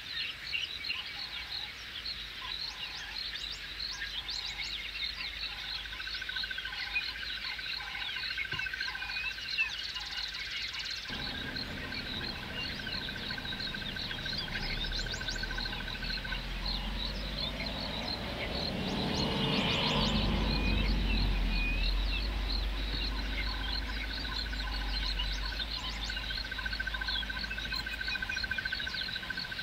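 Waterhole chorus of frogs and insects: rapid high ticking throughout, a steady high trill in two long stretches, and a string of evenly spaced lower calls, about two a second, over the first third. A low hum comes in after about eleven seconds and swells briefly around twenty seconds.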